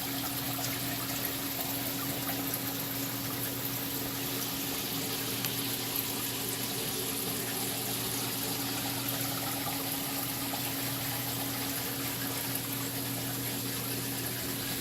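Aquarium filtration running steadily: water trickling and splashing over a low, steady pump hum.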